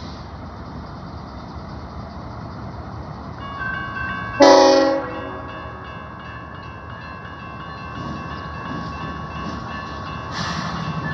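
Railroad grade-crossing warning bell ringing steadily, with a short loud train horn blast about four seconds in. A low rumble of the approaching train rises near the end.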